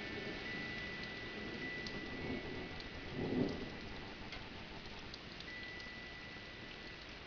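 Steady rain with scattered drips ticking, and wind chimes ringing in long held tones. About three seconds in there is a short, low rumble of thunder.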